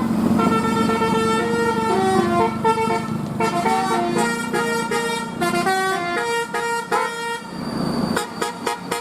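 Bus telolet horn, a multi-tone musical air horn, playing a quick tune of short notes that step from one pitch to the next. About eight seconds in it breaks into a rapid string of short toots.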